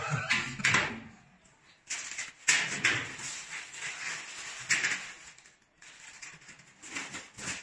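Irregular metallic knocks, clicks and short scraping clatter from steel shelving parts being handled and fitted at the top of a mobile shelving unit, in a few clusters with quiet gaps between.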